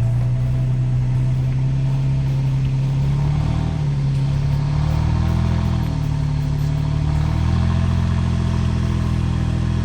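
Vehicle engine running under load, pulling the trailered boat out. Its pitch dips briefly about five to six seconds in and then picks up again.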